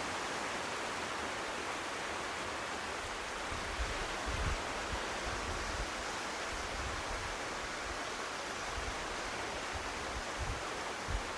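Steady, continuous rush of sea surf, with a few brief low wind buffets on the microphone, about four seconds in and again near the end.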